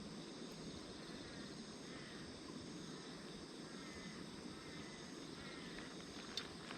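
Faint outdoor ambience: a steady insect chorus over a low rumble, with a few soft chirps and a single sharp click near the end.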